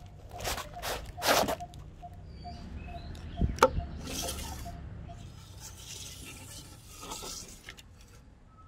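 Packing tape and cardboard being ripped off a wrapped wooden board in a few short tearing strokes. Then a sharp click and the scrape of a steel tape measure being pulled out and laid along the wood.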